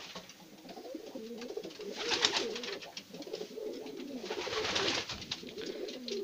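Domestic pigeons cooing, a low wavering coo that goes on throughout, with two short bursts of rustling clatter, about two seconds in and again near five seconds.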